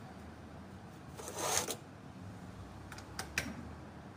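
Hands handling a car A/C compressor clamped in a bench vise: a short scraping rattle a little over a second in, then three quick clicks about three seconds in.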